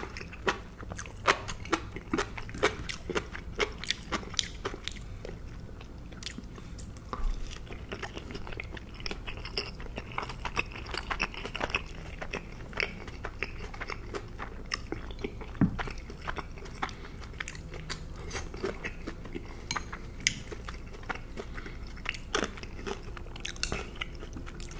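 A person chewing and biting food close to the microphone: a dense, irregular run of sharp wet mouth clicks and crunches.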